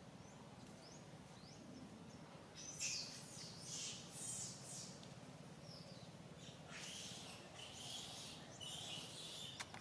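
Faint bird calls: a few short rising chirps, then two spells of louder, scratchy high-pitched calling, with a single click near the end.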